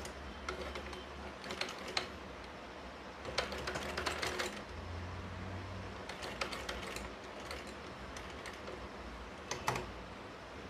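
Sewing machine stitching a seam in short runs of rapid clicking, the longest about three and a half seconds in.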